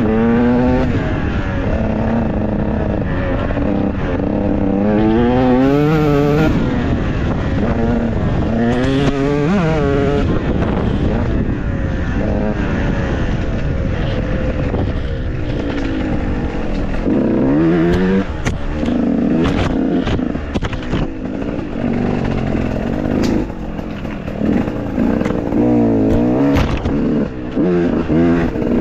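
Off-road motorcycle engines revving up and down in short repeated bursts, with scattered knocks and clatter in the second half.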